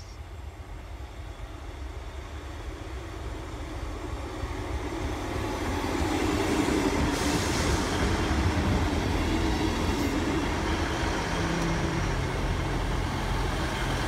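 Great Western Railway Class 158 diesel multiple unit approaching and passing close by. Its diesel engine drone and wheel rumble grow louder over the first six seconds, then hold steady as the carriages go past.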